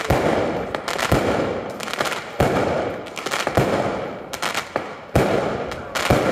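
Daytime fireworks battery: loud aerial bangs about once a second, each with a long echoing tail, with smaller crackling reports between them.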